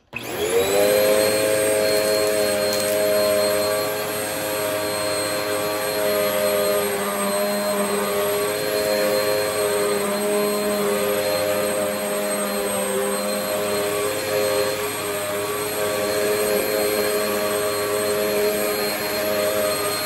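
Bagless upright vacuum cleaner switched on, its motor spinning up in about half a second to a steady whine, then running steadily as it is pushed over a rug.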